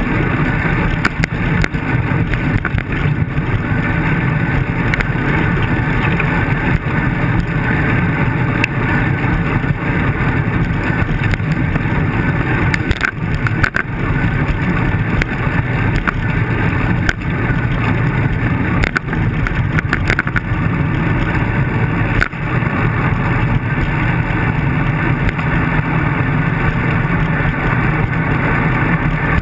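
Steady rumble of wind and road vibration picked up by a handlebar-mounted camera on a bicycle riding over rough pavement, with a few sharp knocks from bumps in the road.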